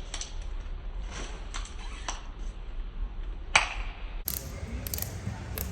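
Chewing gum being cracked and popped in the mouth: a run of sharp snaps at irregular intervals, the loudest about three and a half seconds in, over a low steady rumble.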